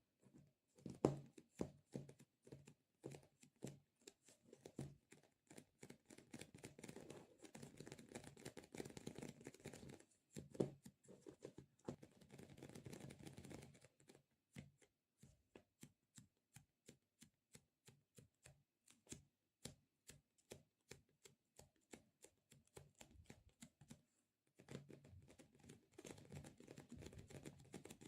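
Close-miked ASMR handling sounds: many quick sticky taps and clicks, broken by stretches of soft crackling like tacky material peeling apart.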